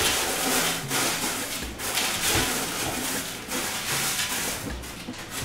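Pebbly drainage substrate being spread and pushed around by hand on the bottom of a glass tank: a gravelly rustling and scraping in irregular strokes.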